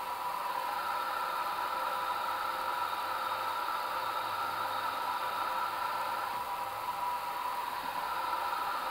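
Steady hiss with a high whine on the flight deck of an Airbus A350-900 while engine 2, a Rolls-Royce Trent XWB, spools up in its auto start just after light-off.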